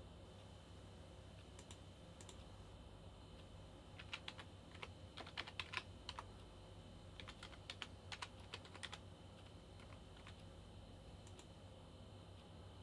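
Typing on a computer keyboard: two short bursts of quick keystrokes in the middle, with a few stray key clicks before and after, over a faint steady hum.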